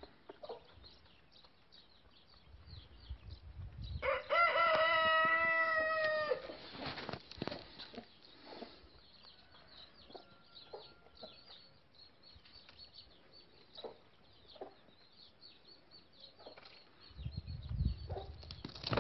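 A rooster crowing once, about four seconds in: one long call of a bit over two seconds. Faint scratching and clicks come from the birds on the paving, and a low rumble rises near the end.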